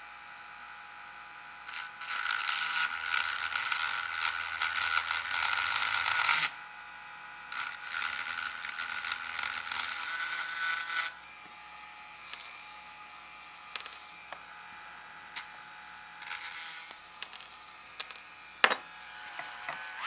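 Proxxon Micromot 60/E rotary tool with a small abrasive stone, running with a steady whine and grinding hard against the steel axle ends of a die-cast toy baseplate in two loud bouts of a few seconds each, to free the wheels. After that the tool runs lighter, with scattered clicks and ticks of small metal parts.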